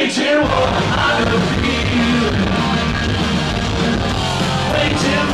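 Live punk rock band playing loud, with a singer over the full band, recorded from within the crowd.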